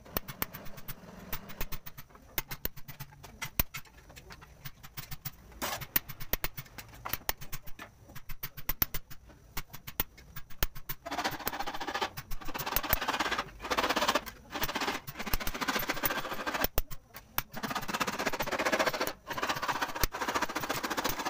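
Brass sheet being worked by hand: a run of sharp, irregular taps and clicks, then from about eleven seconds in a rasping, scraping noise broken by a few short pauses.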